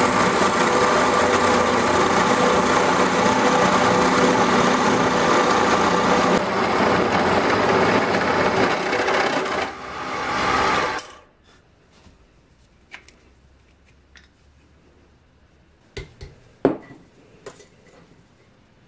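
Drill press running with its bit boring into a wooden mallet head, a steady machine whir that stops about eleven seconds in. After that, a few light clicks and knocks.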